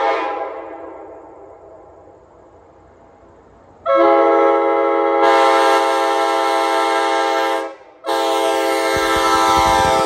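Nathan Airchime K5LA five-chime locomotive air horn on a pickup's roof blowing a steady chord in two long blasts: the first starts about four seconds in and lasts nearly four seconds, and the second follows a brief break. Before them, the tail of an earlier blast dies away in echo, and a low rumble of the truck comes in near the end as it draws close.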